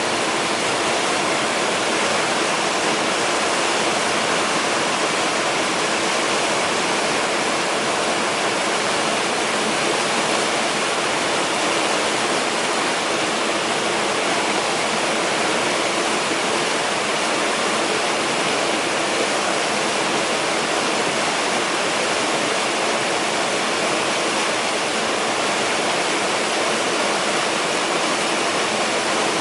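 Creek water running over rocks, a steady, even rush of flowing water with no change throughout.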